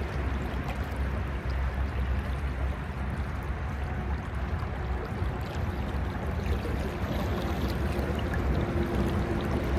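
Steady rushing of a creek's flowing current close by, with a low rumble underneath.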